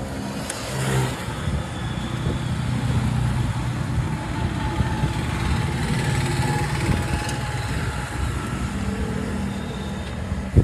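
A motor vehicle's engine running close by amid street traffic noise, with a low, steady engine hum through most of it.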